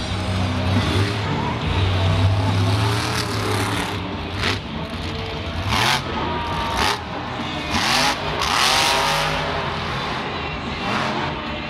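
Iron Man monster truck's supercharged engine revving hard, with several sharp bursts of throttle in the second half as the truck wheelies and drives off.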